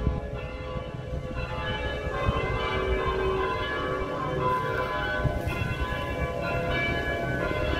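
Cathedral church bells ringing to announce noon, several steady bell tones overlapping so that the ringing sounds like a melody.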